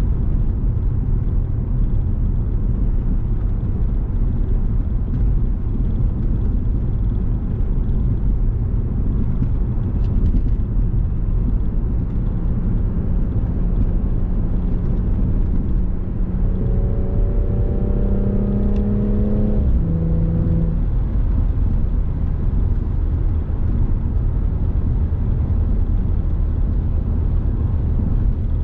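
A car driving, with a steady low rumble of engine and road noise. About two-thirds of the way through, a humming engine note climbs slightly for a few seconds, then drops abruptly and fades out.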